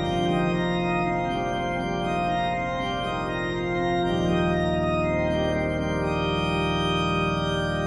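Background music of held, organ-like keyboard chords, with the bass note changing about four seconds in.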